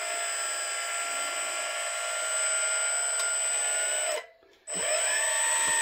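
Small electric hydraulic gear pump of an RC dump truck's DPS dump box running with a steady whine. It stops for about half a second some four seconds in, then starts again with its pitch rising slightly.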